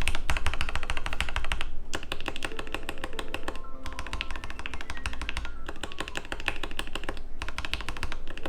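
Fast typing on a mechanical keyboard with Cherry MX-style switches, fitted with a resin artisan keycap: several quick runs of key clacks with short pauses between them, over background music.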